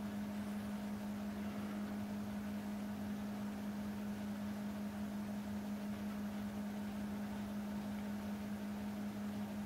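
Quiet room tone: a steady low hum with faint hiss and no other events.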